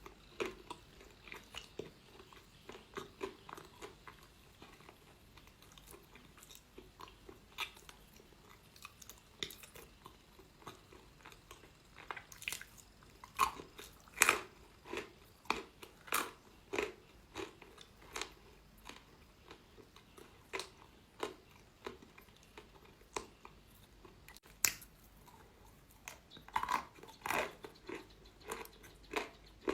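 Close-miked crunching of a person biting and chewing chalk: a run of irregular sharp crunches, with louder bites around the middle and again near the end.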